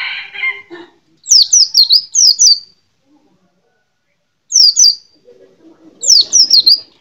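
A pleci (white-eye) singing: several short, loud phrases of two or three quick, high notes, each falling steeply in pitch. A lower, rougher sound fades out in the first second.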